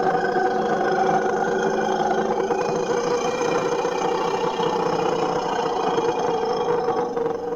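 Imperial mammoth call sound effect: one long, steady, pitched roar held for several seconds, fading out near the end.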